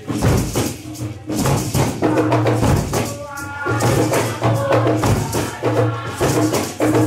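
Music with a steady beat of hand percussion over a bass line.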